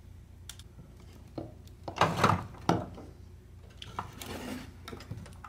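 Clicks and knocks of a radio's cabinet and its bare circuit board being handled and shifted on a wooden workbench, the loudest knocks about two seconds in, followed by a brief rubbing.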